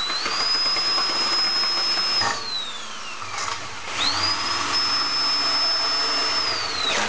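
Power drill driving bolts through a wooden futon arm into a metal stretcher rail, its motor whining at high speed in two runs: it winds down about two seconds in, spins up again about four seconds in, and winds down near the end.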